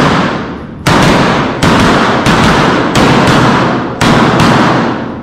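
Gunshots fired singly, roughly a second apart, about six in all, each with a long echoing reverberation off the walls of an indoor range.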